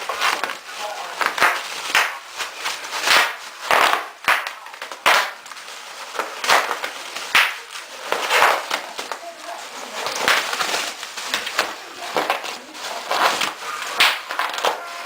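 Bubble wrap crinkling and popping: irregular sharp pops, sometimes several in quick succession.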